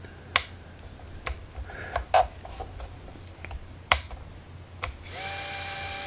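Several sharp clicks as the radio controller's switches are flicked. About five seconds in, the GEPRC TinyGo 4K micro whoop's motors spin up with the quad armed and run at idle with a steady, fairly quiet whine.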